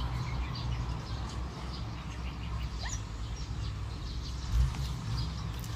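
A steady low outdoor rumble, with a bird giving one short rising chirp about three seconds in and a single dull thump a little after four seconds.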